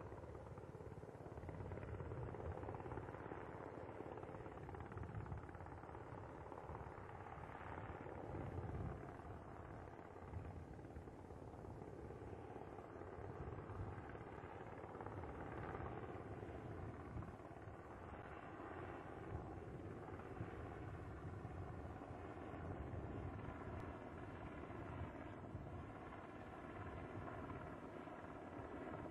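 Steady engine and turbine noise from the ground support vehicles around the landed Space Shuttle orbiter, with a faint whine that wavers in pitch now and then.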